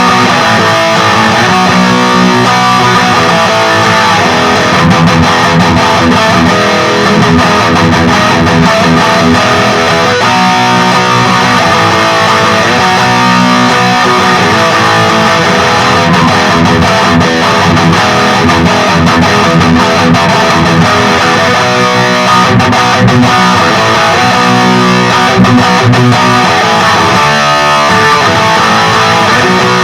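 Electric guitar with active pickups played continuously through a Peavey Vypyr 15-watt modelling amplifier on its high-gain XXX amp model.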